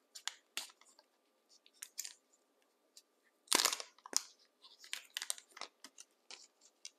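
Plastic wrapping crinkling and rustling by hand in short irregular bursts as a small camera is pulled out of it, loudest about three and a half seconds in.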